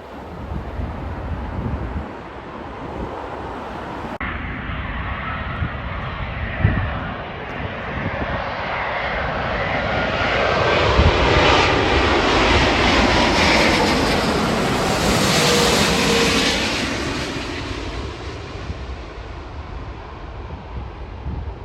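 Jet airliner passing close by: the engine noise swells, holds loud for several seconds in the middle, then fades away, its pitch shifting as it goes past.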